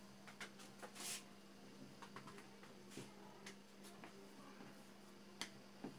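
Near silence over a steady low hum, with faint scattered clicks and soft rustles as hands stretch the edges of a sheet of oily dough on the counter; one sharper click near the end.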